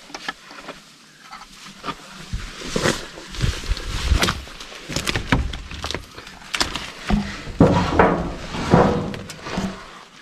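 Footsteps with irregular knocks and scrapes of old wood, some with a low thump, as the old camp's door and its surroundings are handled and walked through.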